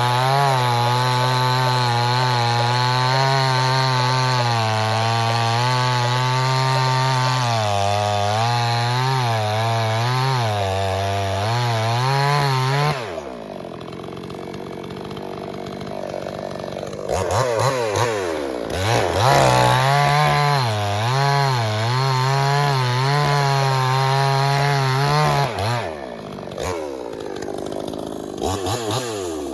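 Pinkway 63cc two-stroke chainsaw running at full throttle through a log, its pitch wavering under load. About 13 seconds in it drops to idle, then it is revved back up into another cut from about 17 seconds and drops off again near 26 seconds.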